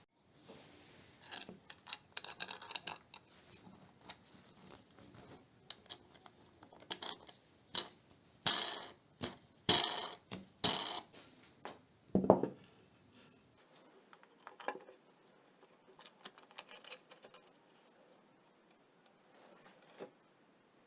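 Irregular clicks, scrapes and light knocks of small hard objects being handled, with one heavier knock about twelve seconds in.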